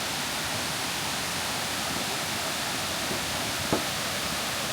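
Waterfall rushing steadily as it cascades over limestone into pools, with one brief sharp knock about three-quarters of the way through.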